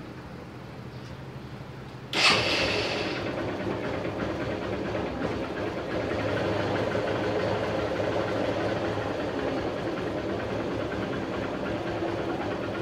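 Hero Honda Hunk motorcycle engine starting about two seconds in, catching at once and then idling steadily, ahead of an engine-oil check. A low steady hum comes before the start.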